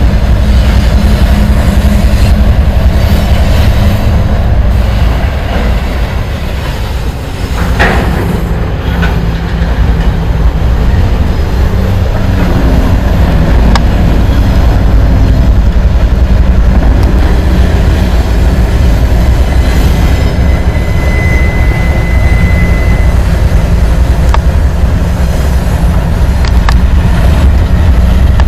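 CSX diesel freight locomotives rumbling past on a steel bridge, with the steady low drone of their engines and wheels running over the rails. A short, steady high-pitched squeal, typical of wheel flange squeal, is heard briefly about two-thirds of the way through.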